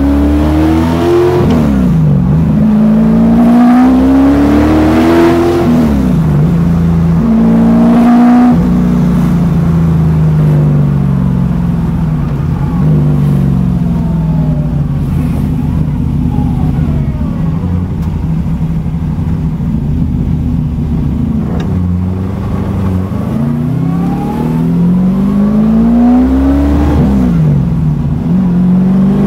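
Ford 447 cubic-inch Windsor small-block V8 with eight individual throttle bodies, heard from inside the car's cabin while accelerating through the gears. Its note climbs and drops back sharply at each shift, three pulls in the first nine seconds. It then holds a steady cruise for about fifteen seconds before two more rising pulls near the end.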